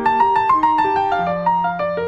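Background piano music: a quick flowing run of notes, with a low note held from a little past halfway.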